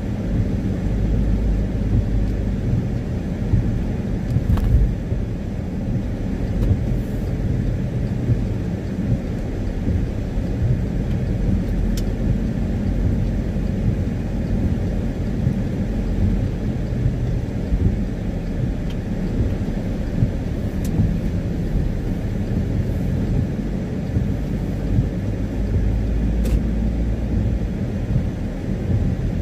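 Steady low rumble of a car driving on a wet road, heard inside the cabin: engine and tyre noise, with a few faint ticks.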